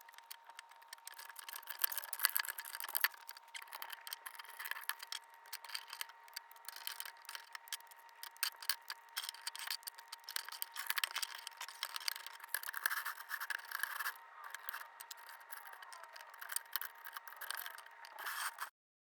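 Lego bricks being handled and pressed together: a busy run of small plastic clicks, rattles and rubbing, with a faint steady tone underneath, cutting off abruptly near the end.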